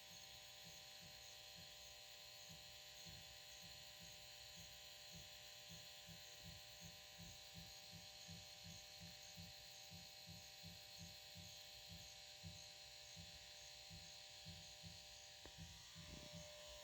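Faint, low drum-like beat of unknown source, repeating steadily at about three beats a second, under a steady hiss. This is the unexplained drumming that is heard most nights from the woods.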